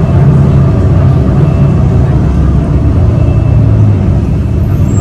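City bus engine running while the bus drives along: a loud, steady low drone with road noise, heard from inside the cabin.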